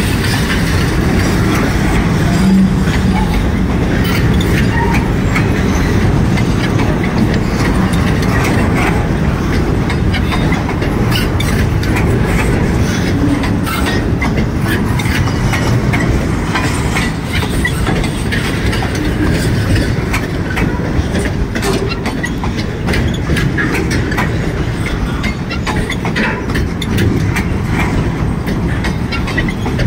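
Double-stack intermodal freight train rolling past: steady noise of steel wheels on rail under the container well cars, with scattered clicks and clanks.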